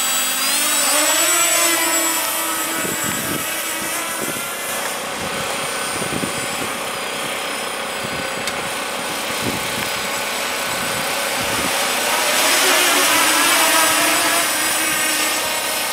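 Walkera Furious 320 quadcopter's motors and propellers spinning up for takeoff, rising in pitch, then a steady buzzing whine that wavers in pitch as the drone climbs and manoeuvres. The whine grows louder near the end as the drone passes closer.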